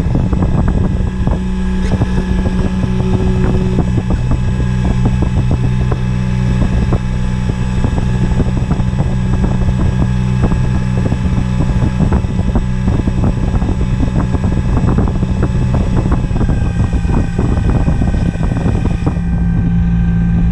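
Electric motor and propeller of a Carbon-Z Cessna 150 RC floatplane running steadily at taxiing throttle, a steady whine, with water washing along the floats and wind on the onboard microphone.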